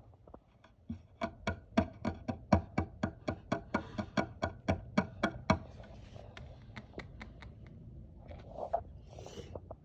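A rapid, even run of sharp taps or knocks, about four or five a second for around four seconds, then a few scattered taps.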